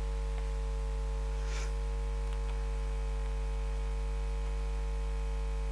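Steady electrical mains hum with a stack of fixed overtones, and a faint brief noise about one and a half seconds in.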